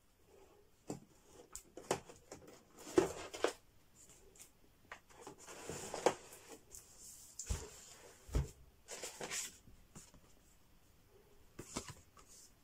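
Unboxing handling noise: a plastic-sleeved monitor panel is slid out of its cardboard box, with crinkling plastic, rustling card and scattered light knocks. Two dull thumps come about two-thirds of the way through.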